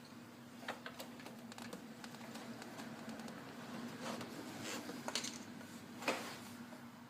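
Scattered light clicks and knocks of metal tools and parts being handled while the carburetors are worked into their rubber intake boots, the sharpest knock about six seconds in, over a steady low hum.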